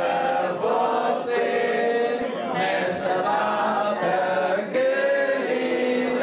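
A group of people singing together without instruments, several voices holding each note for about half a second to a second.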